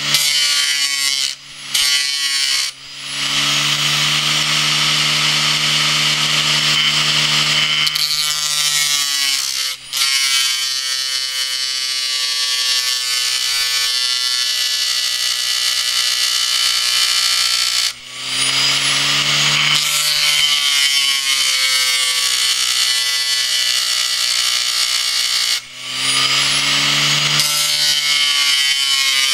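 A steel tool being ground on an abrasive disc spun by a hard-disk drive's spindle motor, a steady grinding with a whine from the spinning disc. It dips briefly a few times, and the whine's pitch glides upward after each dip.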